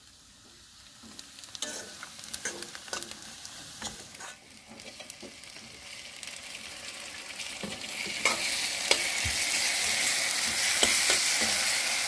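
A steel spatula scrapes and taps against an aluminium kadhai as chopped onions and tomatoes are stirred over a gas flame. The frying sizzle grows louder from about eight seconds in.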